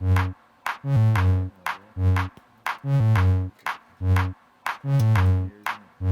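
Electronic background music: a steady drum-machine beat with a deep synth bass line and chords, each phrase starting again about once a second.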